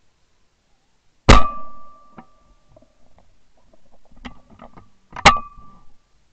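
Two shotgun shots from a Beretta 692 over-under, about four seconds apart, each a sharp blast with a short ringing tail. A few faint clicks come between them.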